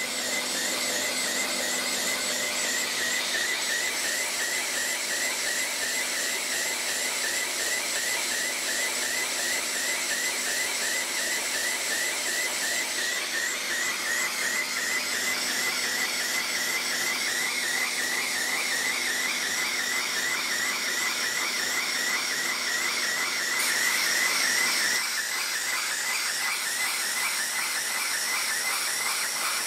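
Small steam engine of a Lego model, a single-acting two-cylinder engine, running: a steady hiss of steam with a high squealing whine that wavers in a quick, even rhythm with the strokes. The sound drops slightly near the end.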